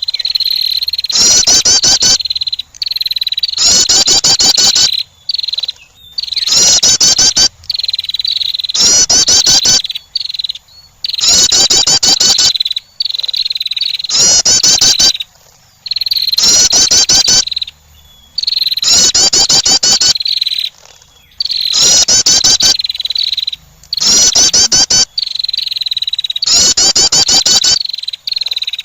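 Female wren calling: a rapid chattering trill about a second long, repeated evenly about every two and a half seconds, used as a lure call to attract wrens. A steady high buzz runs underneath.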